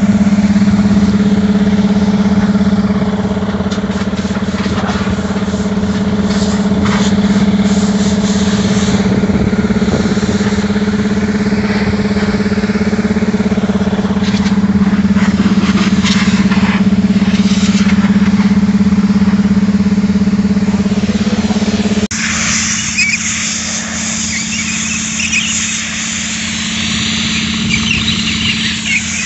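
A heavy engine runs steadily at idle. About two-thirds of the way through, the sound changes abruptly to a loud hiss of compressed air from a hose nozzle blowing dust out of a large cylindrical engine air filter, with the engine still running underneath.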